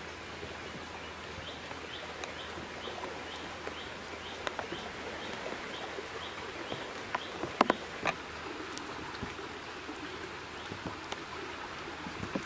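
Outdoor ambience by floodwater: a steady background hiss, with a short high chirp repeating about twice a second through the first half. A few sharp snaps a little past halfway, as of twigs or brush breaking underfoot.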